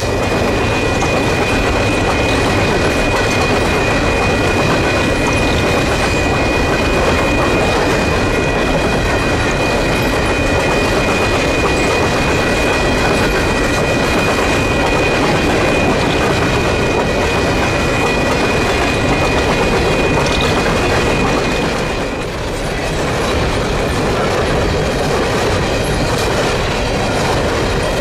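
Empty coal cars of a freight train rolling past close by: a steady, loud rolling noise of steel wheels on rail, with a thin, steady high-pitched wheel squeal over it that stops about three-quarters of the way through, where the sound briefly dips.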